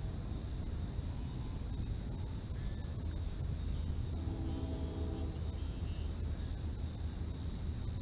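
Storm wind buffeting the microphone with a steady low rumble, under insects chirping in an even pulse about twice a second. Near the middle, a distant tone of several pitches at once sounds for about a second and a half.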